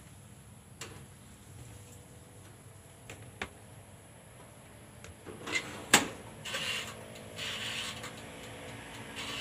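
Shells set down one by one on a toaster oven's metal tray with a few light clicks, then the small oven door shut with a sharp clack about six seconds in. Right after comes a rasping as the oven's control knob is turned, with a faint steady hum under it.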